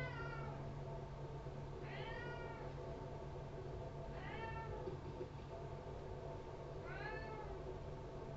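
A cat meowing, four short rising-and-falling calls about two seconds apart, over a steady low hum.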